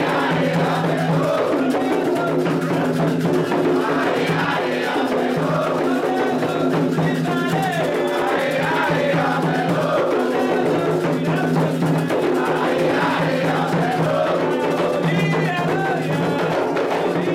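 Candomblé ritual music: atabaque hand drums playing a steady, dense rhythm with a group of voices chanting over it.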